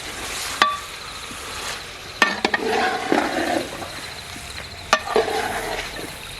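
Chicken pieces sizzling in a pan as they are stirred and scraped with a spoon. Several sharp clinks of the spoon against the pan, each followed by a short stretch of scraping.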